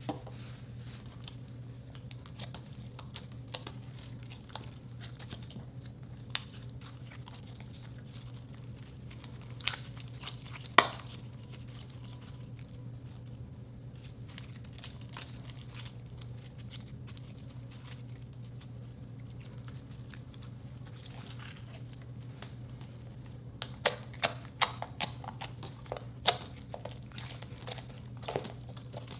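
Hands stretching, folding and kneading glossy, sticky slime, giving scattered wet clicks and pops, with a quick run of them near the end. A steady low hum sits underneath.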